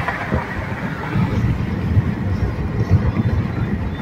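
Road and wind noise of a moving car heard from inside the cabin: a steady, uneven low rumble.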